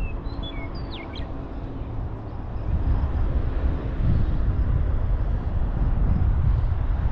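Wind buffeting the microphone in a low, uneven rumble, with a few quick bird chirps in the first second or so.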